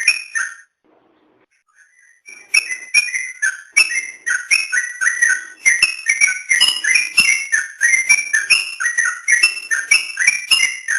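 Yellow-vented bulbul (trucukan) singing a fast run of loud, bubbly whistled notes. The song breaks off for about a second and a half near the start, then carries on.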